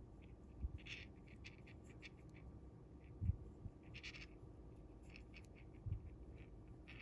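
Faint scratching and rustling of fingers handling monofilament fishing line while tying a knot, with three soft low thumps spread through it.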